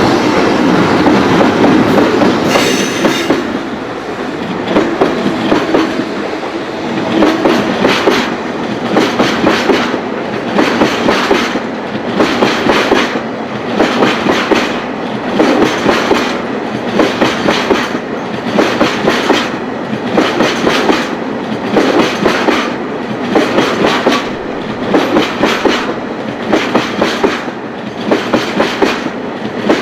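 Freight train of empty oil tank wagons and container flatcars rolling past, its wheels clacking over rail joints. The clacks come in regular groups about every two seconds.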